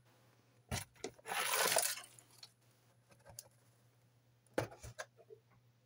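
Plastic model kit sprues, paper instructions and cardboard box being handled: a sharp click, a short rustling swish, then scattered light clicks and taps.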